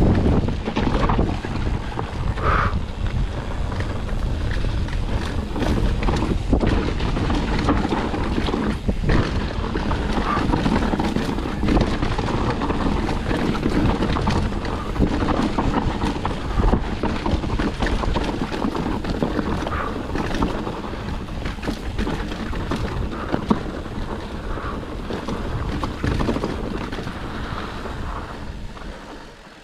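Mountain bike riding on a dirt trail: wind buffeting the action camera's microphone over the rumble of the tyres, with many quick knocks and rattles as the bike goes over bumps. It quietens over the last couple of seconds.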